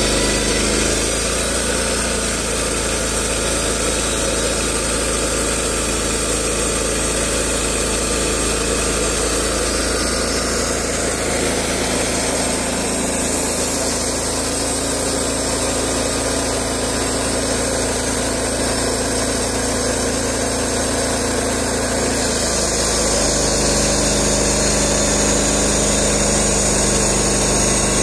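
Portable bandsaw sawmill's gas engine running steadily as the saw head travels along a tulip poplar log. About 22 seconds in, the sound changes as the head comes up to the log end and the blade starts into the next cut.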